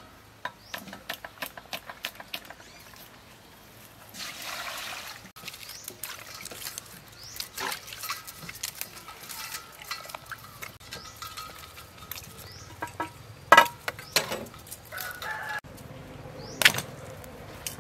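Quick run of knife chops on a wooden chopping block, then water splashing as lemongrass stalks are washed by hand in a steel bowl. Chickens clucking and a rooster crowing sound through it, with a few sharp knocks later on.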